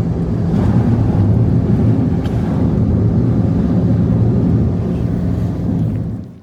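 An engine running steadily at an even pitch, stopping abruptly near the end.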